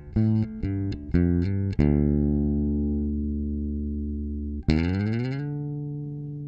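Short electric guitar music sting: a quick run of plucked notes, then a chord left ringing and fading. About five seconds in, a second chord is struck, slides up in pitch and rings out.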